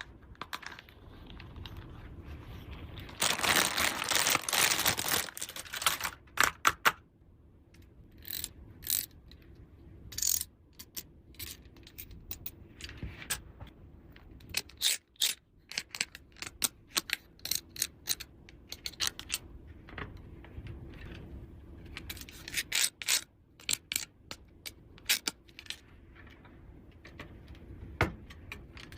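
Small plastic toy pieces and their packaging being handled: scattered clicks and taps, with a dense rustling stretch about three seconds in that lasts a few seconds.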